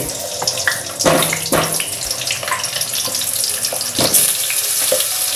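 Potatoes sizzling in hot oil in a steel kadai, a steady hiss. A few knocks as more potato pieces drop in and the spatula strikes the pan.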